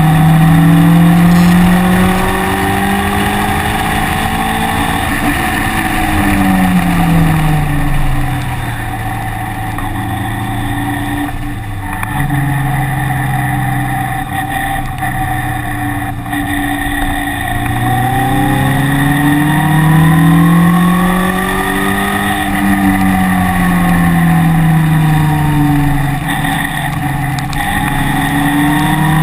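A car engine at racing speed, rising and falling in pitch again and again as it accelerates down straights and slows for corners.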